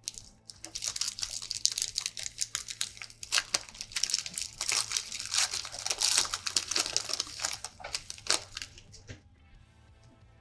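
Trading-card pack wrapper crinkling and tearing as a pack of Panini Recon basketball cards is ripped open and handled: a dense run of quick crackles that stops about nine seconds in.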